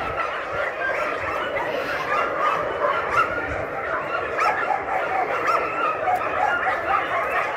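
Many shelter dogs in kennel enclosures barking at once, a continuous overlapping chorus of short calls.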